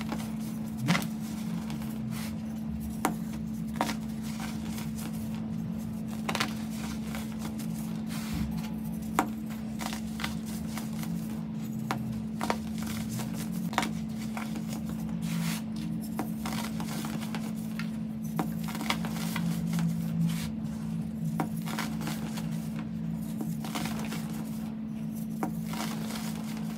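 Clumps of packed baking soda crushed and crumbled between bare hands: a soft crumbling crunch with scattered sharp crackles as chunks break apart, over a steady low hum.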